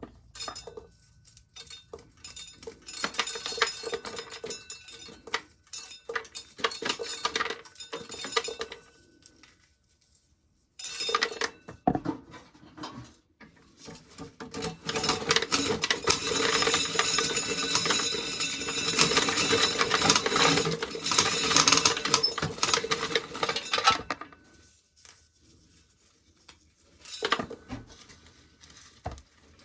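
Dry corn kernels being shelled off the cob, pattering and clinking as they hit a tin can and a cup and bounce off. It comes in two long runs, the second one louder and denser, with a few stray kernels ticking down in between and after.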